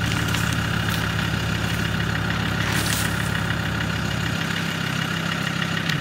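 Land Rover Defender's engine idling with a steady, even hum.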